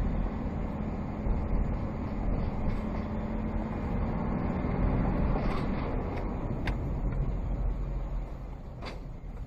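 Steady low rumble of a vehicle driving, heard from inside the cab: engine hum and road noise, with a few faint clicks in the second half.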